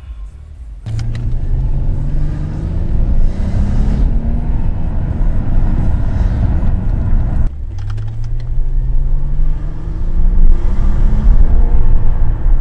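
Car engine accelerating with a steadily rising pitch, then dropping abruptly about seven and a half seconds in as it shifts up a gear, and rising again.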